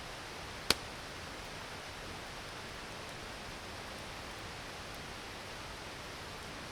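Campfire burning over a steady hiss, with one sharp pop from the fire less than a second in.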